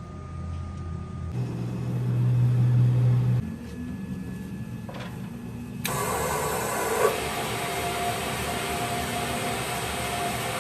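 Metal lathe running with a steady motor hum. About six seconds in, a louder hiss of machining noise sets in and holds, with a brief sharp knock about a second later.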